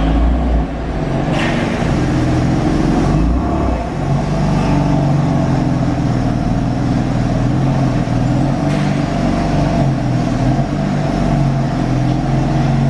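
BMW F80 M3's twin-turbo inline-six running as the car drives, a steady engine note with a heavier low rumble in the first few seconds.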